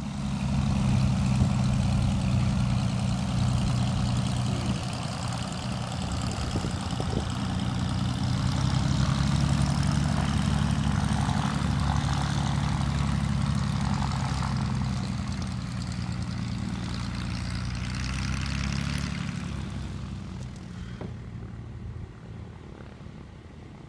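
Britten-Norman BN-2 Islander's twin engines and propellers droning steadily on the ground as it taxis. The higher hiss drops away and the drone grows quieter about twenty seconds in.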